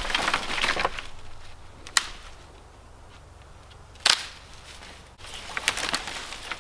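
Dead brush and branches being pulled from a brush pile: twigs rustling and crackling at the start and again from about five seconds in, with a sharp snap about two seconds in and a louder crack about four seconds in.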